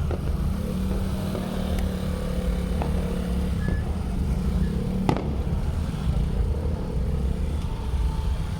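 Steady low vehicle rumble with a few sharp firecracker pops, the sharpest about five seconds in.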